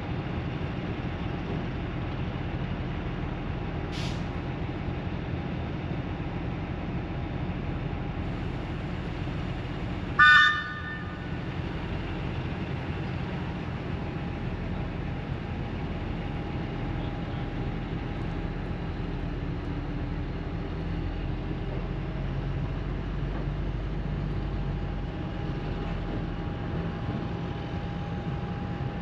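NER Autocar 3170 railcar running with a steady drone, and a single short horn toot about ten seconds in, the loudest thing heard. A brief faint high squeak sounds a few seconds earlier.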